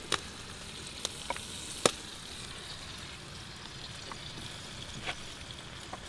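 Food frying over a wood fire: a steady sizzling hiss with a few sharp pops scattered through it.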